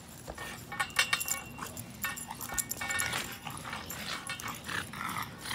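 French bulldog making dog noises while it plays at a tetherball pole, with a cluster of sharp clicks and a faint metallic jingle about a second in.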